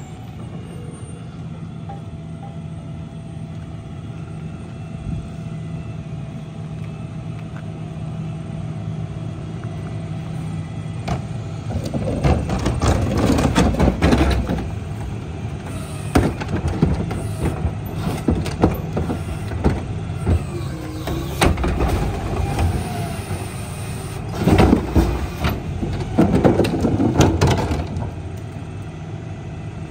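Rear-loader garbage truck's CNG engine running steadily, then partway through a wheeled trash cart is tipped into the rear hopper: repeated bangs and clatter of trash and the plastic cart knocking against the hopper, in several bunches.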